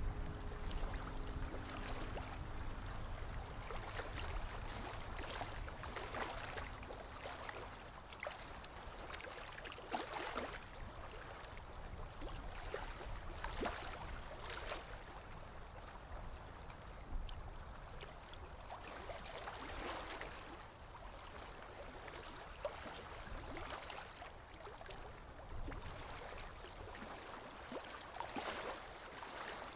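Colouring strokes on paper: a drawing tool scratching and rubbing in short, irregular strokes. A music tail fades out in the first few seconds.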